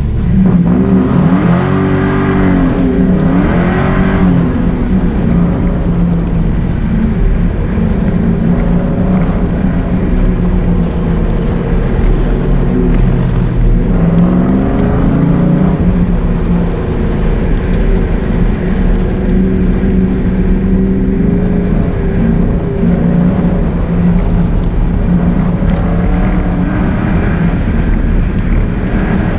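SN95 Ford Mustang engine under hard acceleration on an autocross course, heard from inside the cabin. The revs climb and fall repeatedly, with sharp rises twice in the first few seconds and again about halfway through.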